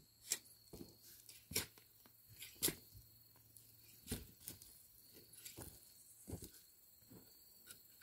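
Irregular crunches and scrapes of loose soil being pushed aside by hand and with a garden fork while digging out sweet potatoes, about half a dozen short sharp ones scattered through.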